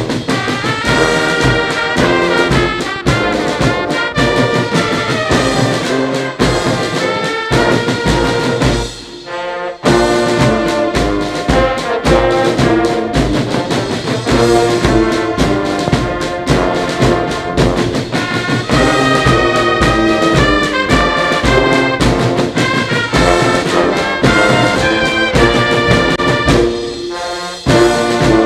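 Brass band music with a steady low drum beat. It breaks off briefly about nine seconds in and again near the end.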